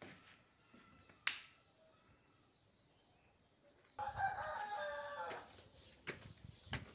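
A rooster crows once, for about a second, about four seconds in. A sharp click comes a little after a second in, and a few knocks near the end, like footsteps on concrete steps.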